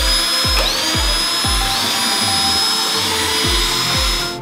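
Cordless drill-driver spinning up and running steadily as it backs screws out of a car's body panel, its high motor whine stopping near the end. Background music with a steady low beat plays under it.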